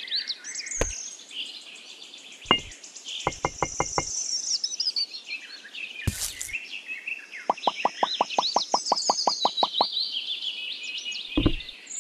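Small birds chirping and twittering continuously in the background, with sharp clicks over them: a few single clicks, a short run of about five, and later a quick even run of about fifteen.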